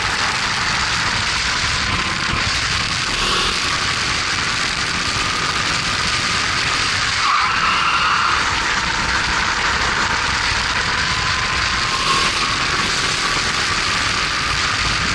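Racing kart's Honda GX270 single-cylinder four-stroke engine running hard, its pitch climbing slowly, dipping briefly about halfway through as the kart slows for a corner, then climbing again. A steady rush of noise runs under it.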